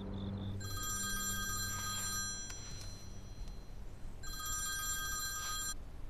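Mobile phone ringing with an incoming call: an electronic ringtone sounds twice. Each ring lasts about a second and a half, with nearly two seconds between them.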